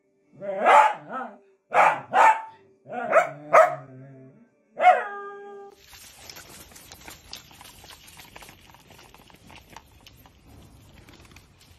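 Dachshund barking, about eight sharp barks over the first five seconds, the last one drawn out. After a sudden change about six seconds in, faint scratchy rustling and ticking follows as a branch is dragged over stone paving.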